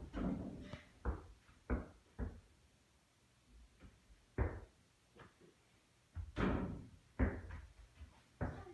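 Footsteps on a wooden floor: short thumps about two a second at first, then a quiet stretch and a few more scattered thumps.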